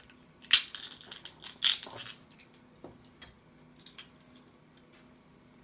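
Dungeness crab shell cracking while being eaten: two loud crackling snaps about half a second and a second and a half in, then a few smaller clicks.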